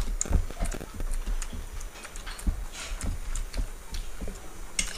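Eating sounds at close range: chewing and lip smacks, and fingers mixing rice on steel plates, heard as irregular soft clicks, smacks and knocks.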